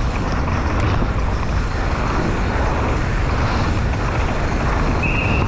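Wind rushing over a GoPro microphone and the tyres and chassis of a downhill mountain bike running fast over a dirt trail: a loud, steady rush with a heavy low rumble. A brief steady high tone sounds near the end.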